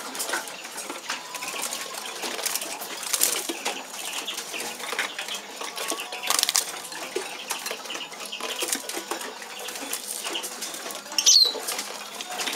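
Siskins moving about in wire show cages: scattered light wing flutters and small clicks of feet on the perches and bars. About eleven seconds in comes a short, high, falling bird call, the loudest sound.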